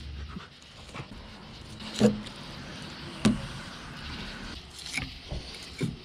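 Knife and fish being handled on wooden dock boards during filleting of a bowfin: two sharp knocks about two and three seconds in, with softer taps and handling noises around them.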